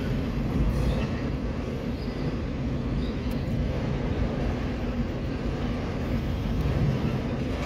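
Autorack freight cars rolling past at steady speed: a continuous low rumble of steel wheels on the rails.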